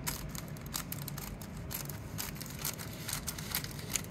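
Steel scissors snipping through a rhinestone transfer sheet with its protective film still on: a run of short sharp snips.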